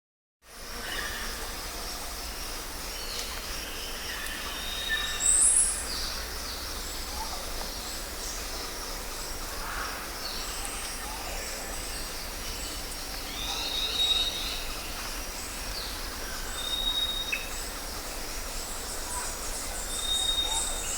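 Jungle ambience starting about half a second in: a steady background hiss and low rumble with many birds calling over it, including short high whistled notes and a loud, high falling call about five seconds in. A fast pulsing high buzz, like insects, rises near the end.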